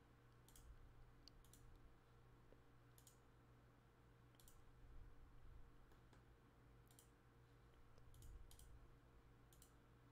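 Faint computer mouse clicks, about ten of them, irregularly spaced roughly a second apart, over a low steady hum.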